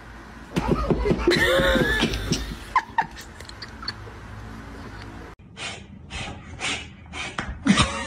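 A voice sliding up and down in pitch, then short breathy gasps and laughs about two a second.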